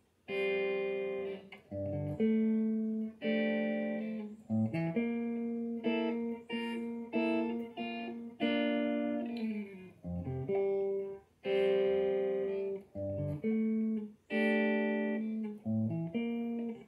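Electric guitar played clean through an amp with no effects, picked up by a phone's microphone: a slow instrumental of ringing single notes and chord tones. A low bass note starts each phrase every few seconds.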